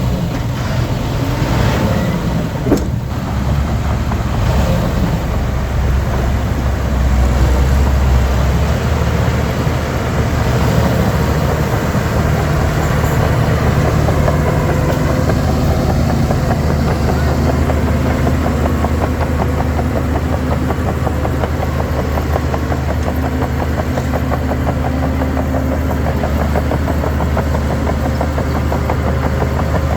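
Diesel engine of heavy earth-moving machinery running steadily, its low note swelling a little about eight seconds in. A single sharp click comes about three seconds in.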